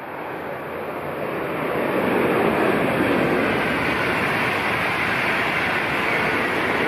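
Swiss express train on a high-speed line: a rushing noise that grows over about the first two seconds as it draws near, then holds loud and steady as the train runs past at speed.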